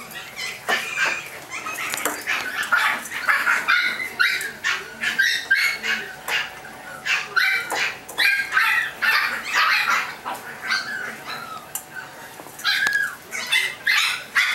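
Chihuahua puppies yipping and barking at play, a rapid string of short high-pitched yaps with a brief break about three-quarters of the way through.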